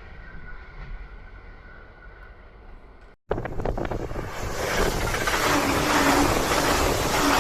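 Running noise of an E259 series Narita Express electric train fading away as it recedes. After a brief dropout about three seconds in, a loud, steady rushing noise builds up.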